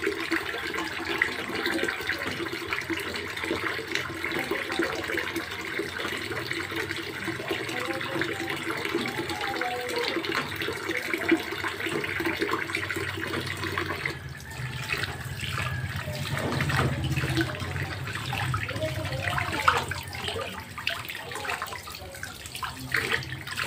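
Water running from a faucet into a sink during handwashing. About fourteen seconds in the sound changes and gets deeper.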